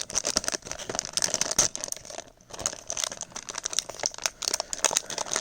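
A foil blind bag being handled and torn open, its plastic wrapper crinkling and crackling in irregular bursts, with a short pause a little past two seconds in.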